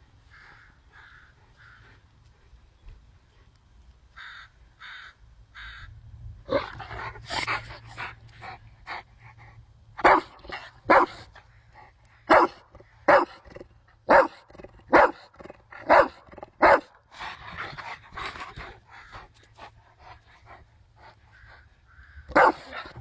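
Rottweiler barking while playing: softer barks build up, then a run of loud, sharp barks about one a second in the middle, and one more loud bark near the end.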